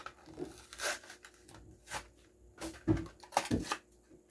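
Plastic blister pack and card backing of a die-cast toy car being torn and crinkled open: irregular short crackles and snaps, loudest about three seconds in.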